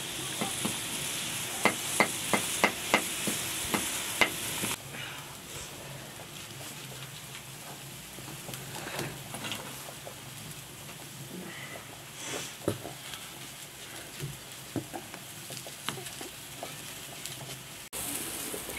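Whole chicken sizzling in a large pot over a wood fire: a steady hiss with a quick run of sharp pops in the first few seconds. Then a quieter stretch of scattered small clicks and crackles from the wood fire and a knife peeling onions.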